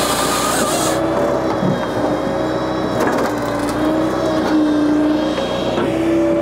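Japa 395 firewood processor running off a tractor's PTO, a steady, slightly wavering machine drone. Split firewood knocks as it drops off the conveyor into a steel dump trailer, with a few sharp knocks about three seconds in.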